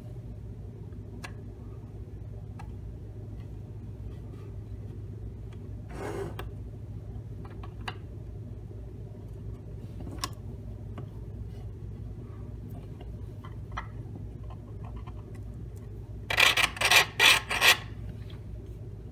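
3D-printed PLA puzzle-box parts being handled and pressed together, with a few light plastic clicks, then near the end four quick, loud scraping strokes of plastic on plastic, over a steady low hum.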